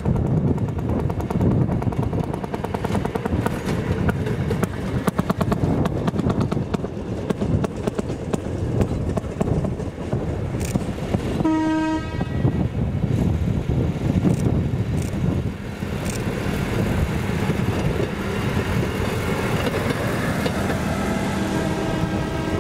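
Low rumble of idling diesel locomotives while a small rail maintenance vehicle rolls along the track, its wheels clicking over the rail joints. A single short horn blast sounds about halfway through.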